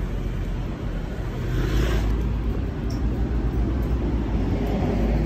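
Outdoor street noise: a steady low rumble of traffic while walking on a paved sidewalk, swelling briefly about two seconds in.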